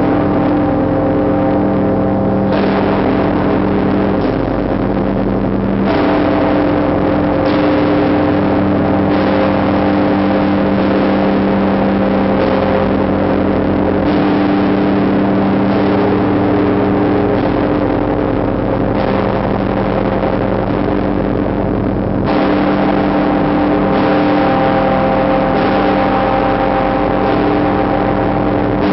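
The Tsar Bell of the Trinity-Sergius Lavra, a giant Russian church bell, rung in slow repeated strokes. Each stroke lands every couple of seconds, and its deep ringing hum carries on unbroken between them.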